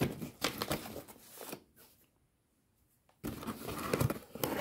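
Cardboard box flaps being pulled open by hand, the cardboard scraping and crackling. It stops for about a second and a half in the middle, then starts again.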